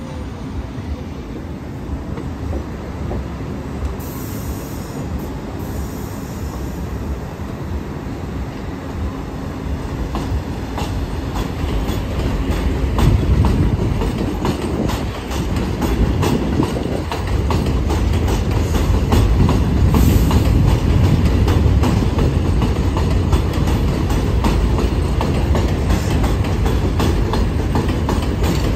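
New York City subway train running along an elevated steel track, with a steady rumble and many sharp wheel clacks over the rail joints. The train grows louder from about ten seconds in and stays loud as the cars pass close by.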